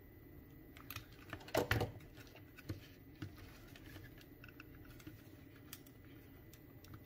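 Plastic clicking and creaking as the ear-cup housing of JBL E65BTNC wireless headphones is prised apart by hand, with a louder burst of cracking about one and a half seconds in and scattered lighter clicks after it.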